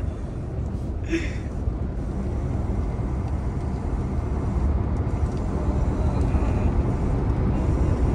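Steady engine and road noise inside a moving truck's cab, slowly growing louder, with a brief hiss about a second in.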